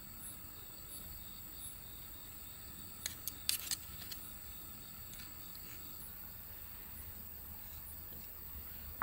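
Crickets chirping faintly and steadily in the background, with a few sharp clicks of chopsticks against a wooden plate about three seconds in.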